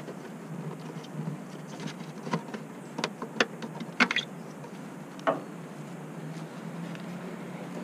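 Short plastic clicks and knocks, about six of them scattered through the first five seconds, as the bulb sockets are twisted and pulled out of a pickup's plastic taillight housing, over a faint steady low hum.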